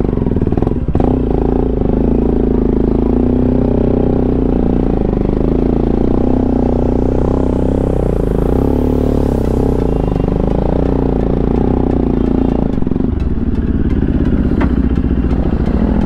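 Motorcycle engine running steadily under load on a rough off-road climb, with some rattling; its note shifts about thirteen seconds in.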